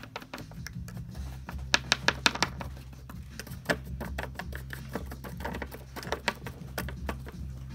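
Light irregular taps and clicks of a soldering iron tip and solder wire against copper-foiled stained-glass pieces as they are tack-soldered, a quick cluster of sharper taps about two seconds in, over a low steady hum that starts about a second in.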